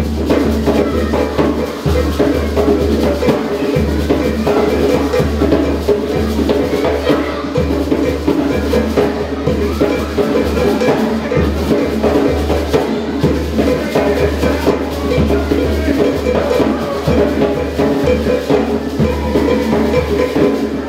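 Music with a driving, steady drum rhythm for African dance, coming in suddenly and running on loudly.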